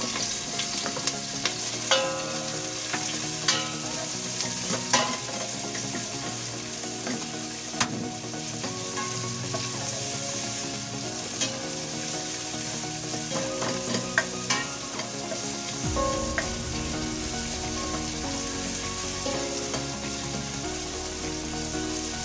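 Sliced red onion and garlic sizzling in hot oil in a stainless steel stockpot, the sauté for kinamatisan pork. A metal utensil stirs the pot, clicking and scraping against its sides every few seconds.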